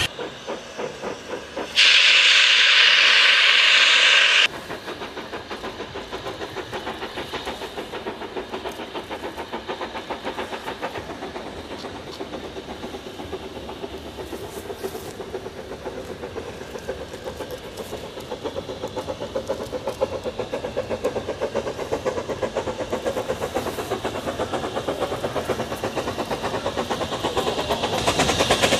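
Ffestiniog Railway narrow-gauge steam locomotive: a loud burst of hissing steam for about three seconds near the start, then its rapid, steady exhaust beats as it works along the line, growing louder towards the end.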